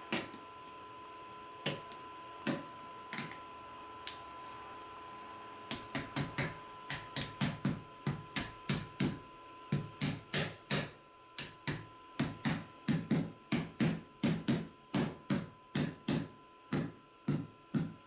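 Soft-faced mallet tapping wooden strips down into slots in a wooden fixture board: a few single knocks, then from about six seconds in a steady run of short taps, two or three a second.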